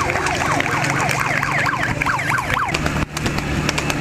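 Electronic siren yelping in fast rising and falling sweeps, several a second. It stops a little before three seconds in, leaving a low steady hum.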